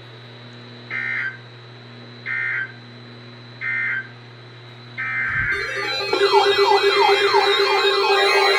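Emergency Alert System data tones: three short bursts of the end-of-message signal about a second and a half apart, then a longer data burst starting the next alert's header about five seconds in. From about six seconds in, warbling alert tones and a steady tone set in and grow louder, the alarm sounding for the next warning.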